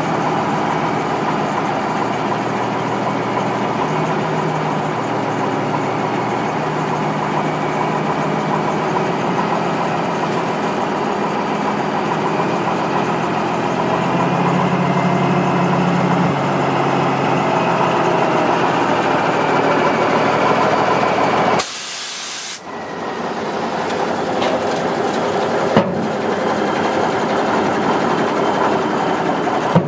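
Diesel engine of a 1985 Kenworth W900B dump truck running steadily, driving the hydraulic hoist as the dump body is raised. About two-thirds of the way through there is a short, sharp hiss of air, after which the sound is a little quieter.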